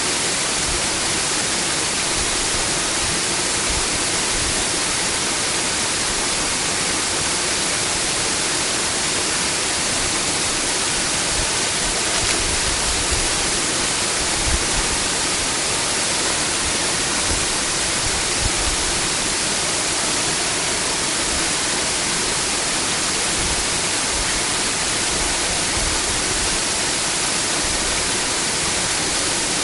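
Waterfall rushing steadily: an even wash of falling water, with a few low bumps near the middle.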